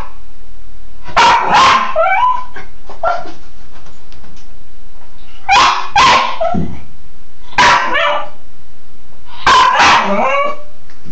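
Cairn terrier barking in short bouts of two sharp barks every few seconds, with a few smaller yelps between them, over the steady hiss of a running shower.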